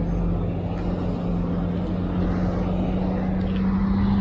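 A scooter's motor running under a rider with a steady hum that rises slowly in pitch as it picks up speed, over road and wind noise.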